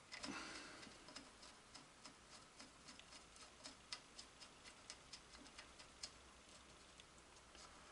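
Faint, fairly rapid metallic ticking, about four or five clicks a second and dying away about six seconds in: a steel nut being spun by hand onto the threaded end of an Atlas 7B shaper's stroke-adjustment lead screw.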